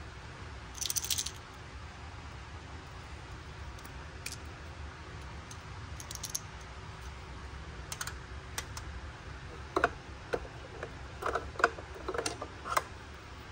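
Small plastic clicks and taps of miniature toy-kitchen pieces being handled and set down on a toy plastic table, with a brief rattle about a second in. The taps come thicker and louder in the last few seconds.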